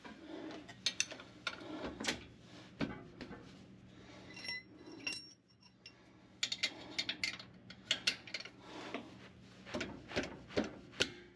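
Steel combination wrench clinking against the bolts of the rear drive shaft flange as they are worked loose and turned out. Scattered light metallic clicks, with quick runs of clicks about two-thirds of the way in and again near the end, and a brief ringing tone about four seconds in.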